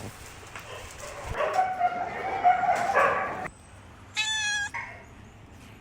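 Pet animals calling: a rough stretch of calls for about two seconds, then one short, high-pitched cry a little past the middle.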